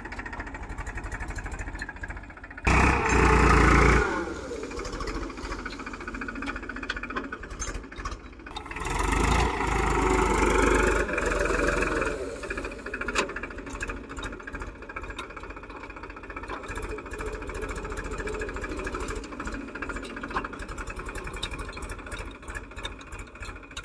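Farm tractor's diesel engine running steadily while it pulls an implement through soil. The sound gets louder twice: briefly about three seconds in, and again for about three seconds around ten seconds in.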